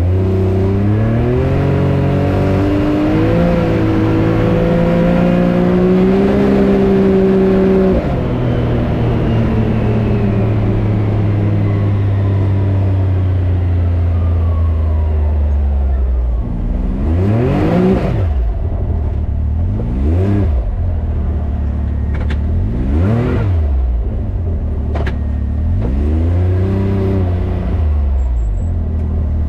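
Can-Am Maverick X3 Turbo RR's turbocharged three-cylinder engine running at raised revs for about eight seconds, then dropping back to a low, steady run. In the second half it is revved in four short blips that rise and fall.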